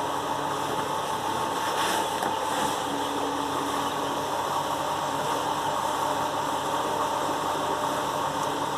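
A steady mechanical hum, like a motor or engine running evenly, with no change in pitch.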